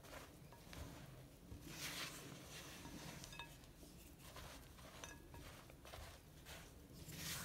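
Silicone spatula stirring crumbly chocolate cookie dough in a glass bowl: faint scrapes and small clinks against the glass, strongest about two seconds in and again near the end.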